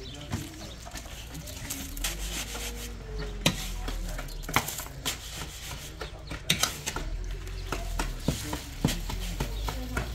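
Masonry work: irregular scrapes and sharp knocks as a pan of wet mortar and a trowel are handled against a concrete-block wall.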